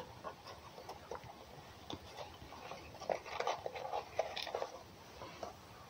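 An animal chewing food: soft, irregular crunches and clicks, busiest around the middle.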